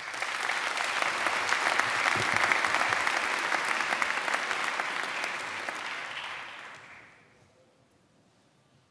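A large audience applauding, dense clapping that starts at once, holds steady, then dies away about seven seconds in.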